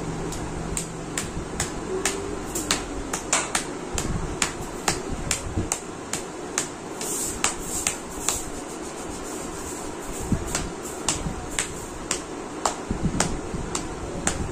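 Hands massaging and patting a heavily oiled scalp and hair: irregular sharp wet clicks and pats, a few a second, over a steady background hum.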